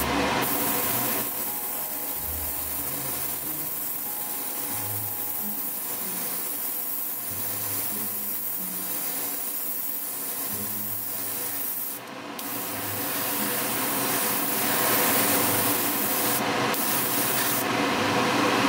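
Airbrush hissing steadily as it sprays pearl paint onto a test spoon, with short breaks about twelve and sixteen seconds in when the trigger is let go. Under it runs a steady hum.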